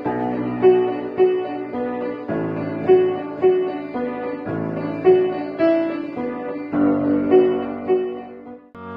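Background music: a piano playing a calm, repeating figure of notes about two a second, the chords changing every two seconds or so. It fades out near the end.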